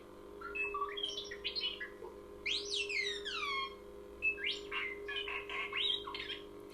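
Lightsaber sound font playing through the hilt's small speaker: a steady low blade hum, with a run of quick electronic chirps and whistles over it and a cascade of falling whistles a little before the middle.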